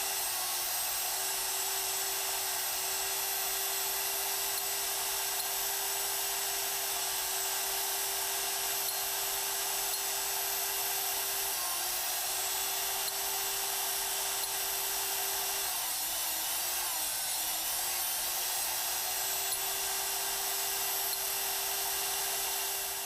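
Hougen 10950 sharpening machine's grinding motor running with a steady high whine while an annular cutter's teeth are ground down. The pitch dips briefly a few times, and the sound dies away near the end.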